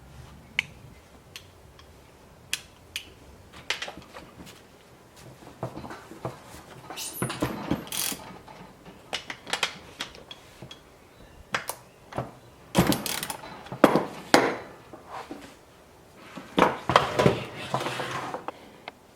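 Metal clicks, knocks and short rattling bursts of hand work on a chainsaw's bar and chain, scattered irregularly, with the loudest bursts about halfway through and near the end.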